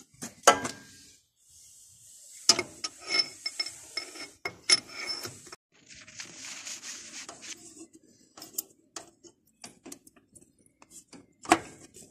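Steel gearbox parts of a Taral M51 two-wheel tractor clinking and knocking as a shaft and gear are worked into the housing by hand. A cluster of ringing metallic clinks comes a few seconds in, then a stretch of rubbing, scattered clicks and a sharper knock near the end.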